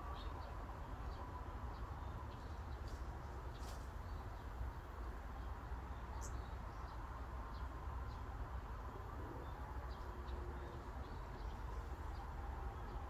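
Forest ambience: a steady breeze with a low rumble, and small birds giving short, high chirps now and then, one a little louder about six seconds in.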